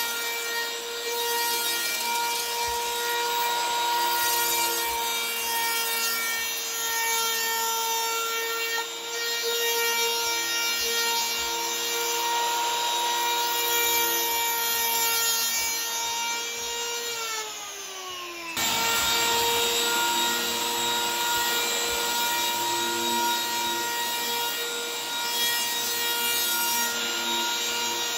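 Skil 100 electric power planer running with a steady high whine while its cutter head shaves a foam surfboard blank, with a rough rasping hiss from the cut. About two-thirds of the way through, the whine slides down in pitch, then is abruptly back at full speed.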